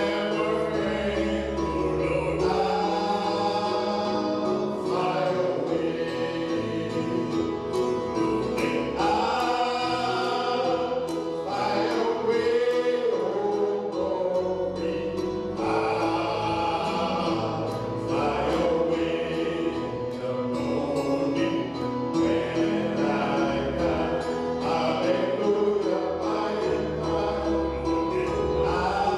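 Two men singing a gospel song together into handheld microphones, amplified over the church sound system, with a continuous musical backing.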